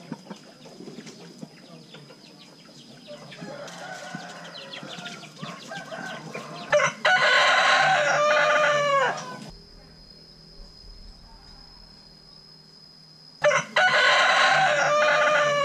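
Rooster crowing twice, about seven seconds in and again near the end, each crow lasting about two seconds and dropping in pitch at its close. Softer, scattered clucking comes before the first crow.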